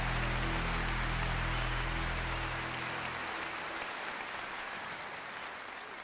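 Audience applauding over a held low chord that stops about three seconds in; the applause then fades away gradually.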